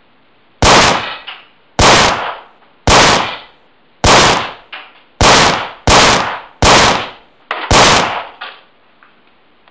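Eight pistol shots, about one a second, each a sharp crack with a short decaying tail.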